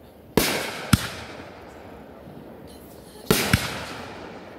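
Aerial fireworks going off. Twice, a loud boom with a long fading echo is followed a moment later by a sharp crack, first about half a second in and again about three seconds later.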